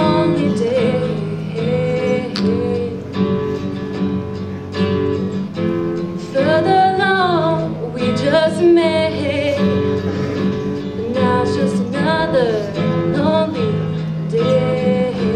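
A young woman singing a song to acoustic guitar accompaniment. Her voice slides between notes over the steady guitar.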